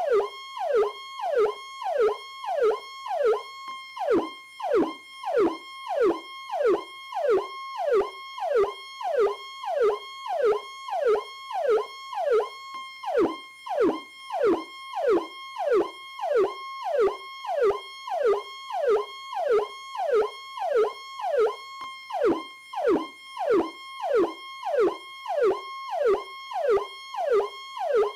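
Police Powercall electronic siren cycling rapidly: a sharp falling sweep repeats about one and a half times a second over a steady high tone.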